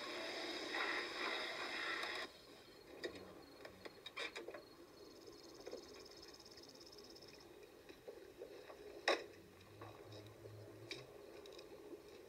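A small hatchback car pulling up: the steady noise of its running and rolling stops suddenly about two seconds in. Then come scattered clicks and knocks as the driver's door is worked and he climbs out, with one sharp knock, the loudest, about three-quarters of the way through.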